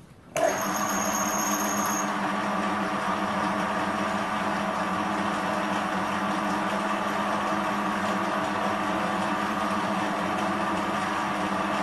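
Paramount BLC-1016 bench lathe switched on about half a second in, then running steadily with a hum of motor and headstock gears. A high thin whine sounds over it for the first second and a half after start-up.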